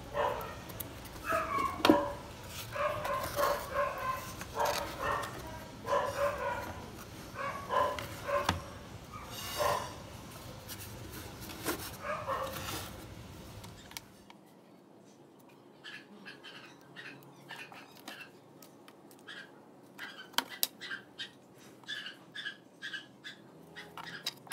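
A dog barking repeatedly in short calls. After about fourteen seconds the barking drops away and only faint, short clicks remain.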